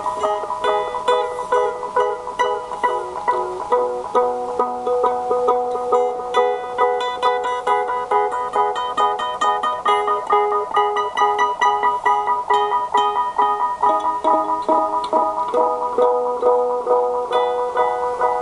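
Fretless plucked string instrument played through delay and effects pedals: a fast, continuous run of short plucked notes, several a second, that overlap and repeat into a dense, shimmering pattern.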